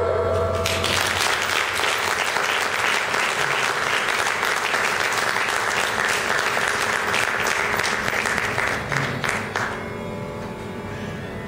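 Audience applauding at the end of a performance for about nine seconds, then dying away; after it a faint steady drone remains.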